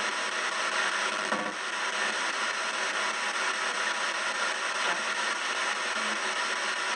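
Ghost box radio sweeping through stations, giving a steady rush of radio static.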